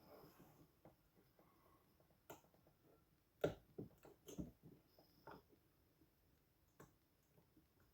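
Faint, scattered clicks and ticks of a pick working the spool pins of an 18-pin AEGIS high pin count lock, about five of them, the loudest about three and a half seconds in.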